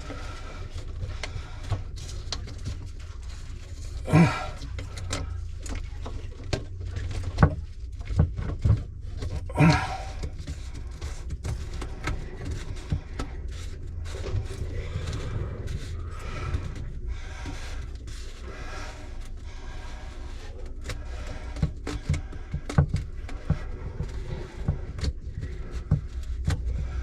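Scattered clicks and knocks of hand work on a sink's push-button pop-up drain fitting, with a few sharper knocks about 4, 7 to 9 and 10 seconds in, over a steady low rumble.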